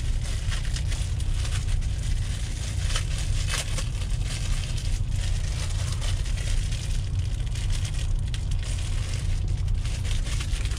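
Plastic wrapping crinkling and crackling in irregular bursts as it is handled, over a steady low rumble.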